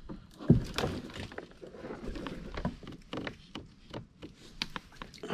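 Irregular knocks, bumps and rustling of someone moving about and handling gear in a plastic sit-on-top kayak, with one loud low thump about half a second in.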